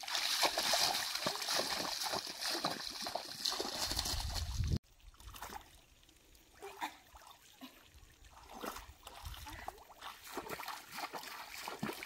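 Shallow muddy pond water splashing as a person wades through it, then cutting off suddenly about five seconds in; after that, quieter scattered splashes and drips as a bamboo plunge basket is pushed down into the water.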